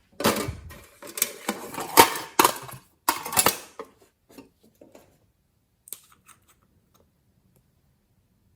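Glossy slime being worked by hand, with dense sticky crackling and sharp popping clicks for about four seconds, then only a few scattered faint clicks.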